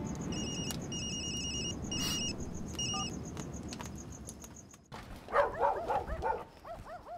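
Soft background music fading out, then about five seconds in, dogs barking: a quick run of overlapping barks followed by a few single ones.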